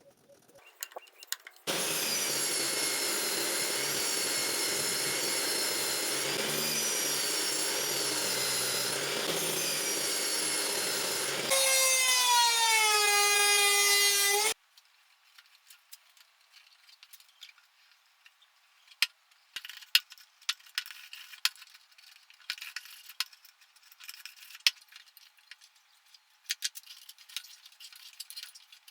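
A power saw runs steadily for about ten seconds, then grows louder for about three seconds with its pitch falling, and cuts off abruptly. Faint scattered clicks and taps follow.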